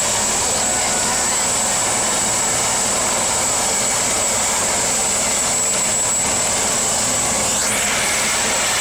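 Turbine air-ambulance helicopter running on the ground: a steady high turbine whine over a broad rushing noise, unchanging in level. A short rising whistle sounds near the end.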